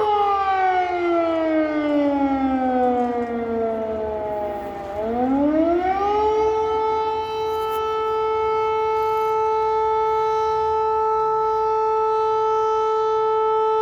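Civil defence air raid siren sounding an air raid alert. Its pitch slides slowly down for about five seconds, rises quickly back, then holds one steady, bloody loud tone.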